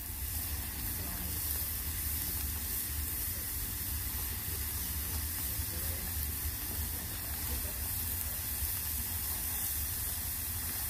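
Steady sizzling hiss of beef, broccoli and rice frying on a hot flat-top griddle, over a low steady rumble.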